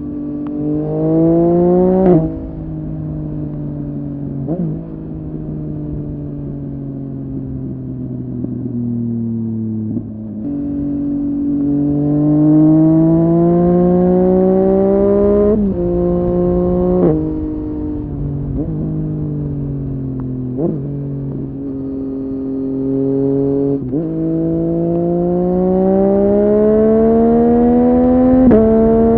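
Yamaha MT-09's inline three-cylinder engine through a Dominator HP8 slip-on exhaust, accelerating through the gears under way. The pitch climbs steadily and drops sharply at each upshift, and it falls slowly as the throttle is rolled off about a third of the way in.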